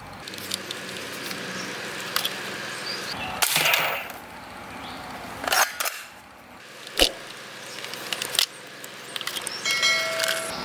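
A toy soft-bullet blaster gun being handled and tried out: a handful of separate knocks and clicks, spaced a second or two apart, with one sharp snap in the middle. A brief cluster of high tones sounds just before the end.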